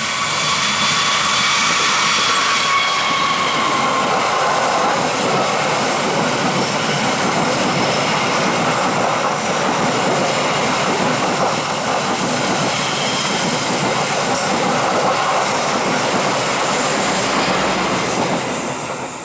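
A train passing close by on the rails, its wheels giving a loud, steady rolling noise, with a faint high squeal that fades out over the first few seconds.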